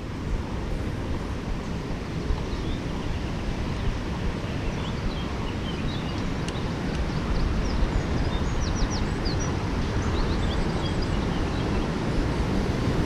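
Wind buffeting a handlebar-mounted GoPro's microphone, mixed with tyre noise on asphalt, while a mountain bike rolls along a paved road. Small birds chirp faintly in the middle of the stretch.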